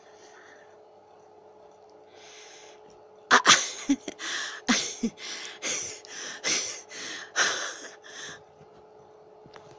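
A woman's breathy laughter: a run of a dozen or so short, hissing bursts of breath, about two a second, starting about three seconds in and stopping some five seconds later.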